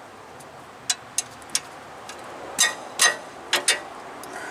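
A breaker bar and socket working on the 18 mm front caliper bracket bolts, metal on metal: three light clicks, then four louder clanks that ring briefly.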